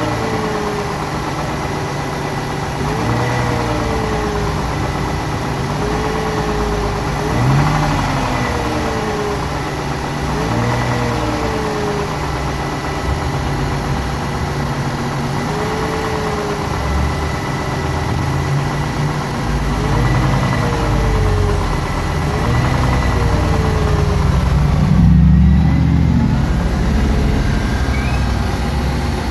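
2001 Ford Mustang's 3.8-litre V6 running steadily, with no knock to be heard now that its low oil has been topped up. A faint whine rises and falls every few seconds, and the engine note swells briefly near the end.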